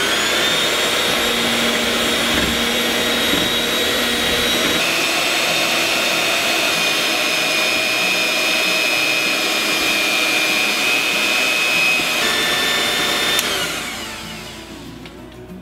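Electric hand mixer running, its beaters whipping heavy cream in a bowl. The steady whine steps down in pitch about five seconds in and back up about twelve seconds in, then winds down near the end.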